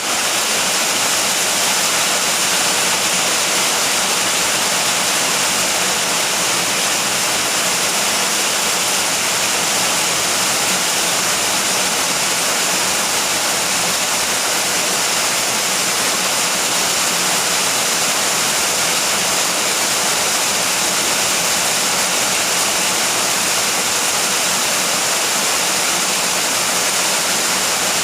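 Steady rain falling: a dense, even hiss that does not change, with no thunder.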